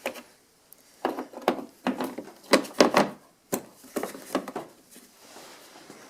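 Replacement exterior door handle being fitted into the door of a 2006 Chevy Silverado: a quick run of about a dozen knocks, clicks and rubs from handling the part.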